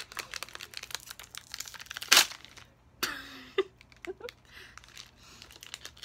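Plastic candy wrapper crinkling as it is handled and torn open to unwrap a lollipop, with a loud rip about two seconds in and a second tear a second later, then lighter crinkles.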